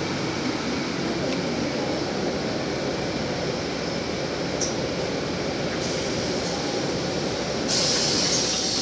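Steady running noise inside a moving city bus: engine and road rumble with a hiss. Near the end a louder, higher hiss joins in.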